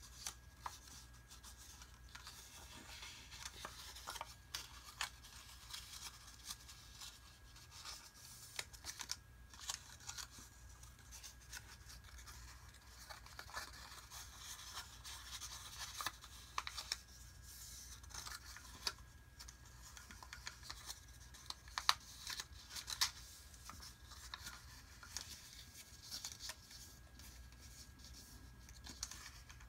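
Sheet paper being folded and creased by hand: rustling and crinkling, with fingers pressing and scraping along the folds in a string of short scratchy sounds. A couple of sharper crackles come about two-thirds of the way through.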